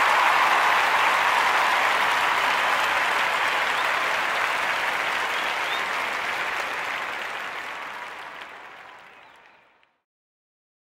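Applause from a crowd, fading out gradually and giving way to silence near the end.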